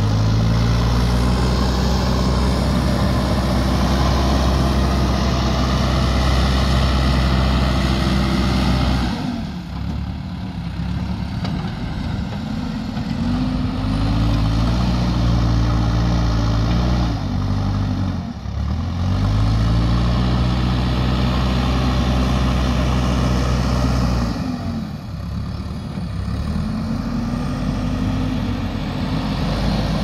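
JCB 3DX backhoe loader's diesel engine working under load as the front bucket pushes loose soil. It runs at high revs, drops back and picks up again three times.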